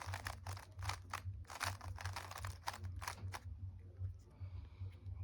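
Rubik's cube being turned quickly by hand: a rapid run of plastic clacks for about three and a half seconds, then fewer, softer clicks, over a steady low hum.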